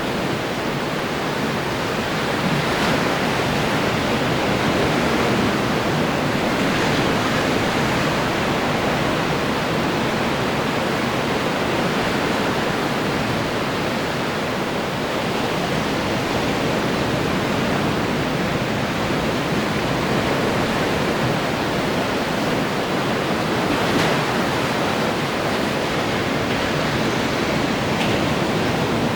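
Ocean surf washing onto the shore in a steady rush of breaking waves, swelling slightly a couple of times.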